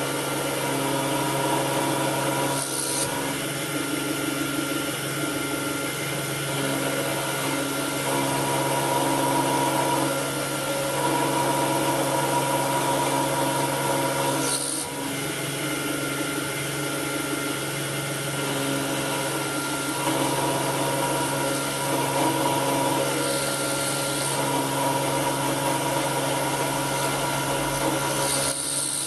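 A 775 DC hobby motor spindle runs steadily while a 4 mm high-speed steel end mill cuts a slot in brass. The motor's steady whine sits under a rasping cutting noise that swells in stretches as the cut loads. Brief clicks come at about 3 s, about 15 s and near the end.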